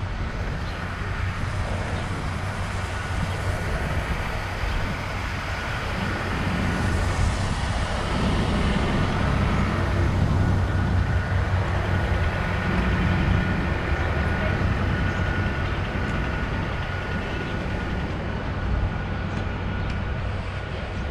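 City street traffic: motor vehicles running close by, with a steady low rumble that grows louder for several seconds in the middle and then eases off.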